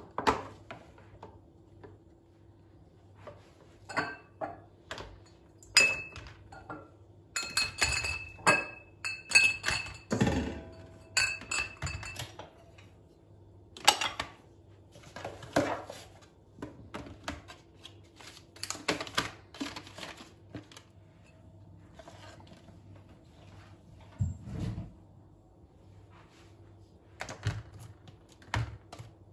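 Dishes and kitchen containers being handled and set down: irregular knocks and thuds with some short ringing clinks, busiest in the first two-thirds and sparse near the end.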